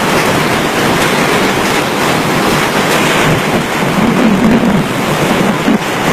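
Typhoon wind and driving rain: a loud, steady rush of noise.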